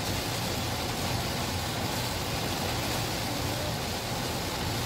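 Steady noise of very heavy rain on a moving Toyota Innova and its tyres on the wet road, heard from inside the cabin.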